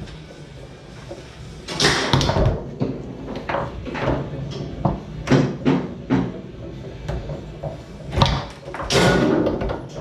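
Foosball being played on a Tornado table: sharp knocks of the ball struck by the rod men and hitting the table walls, with rods clacking. The knocks come at irregular intervals, with louder flurries about two seconds in and again near the end.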